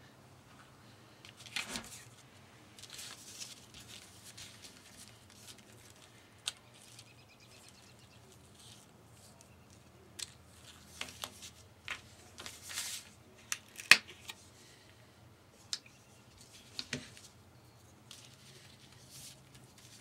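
Hands handling small painted leather earring pieces on a table: scattered light clicks, taps and rustles, with a few sharper clicks past the middle.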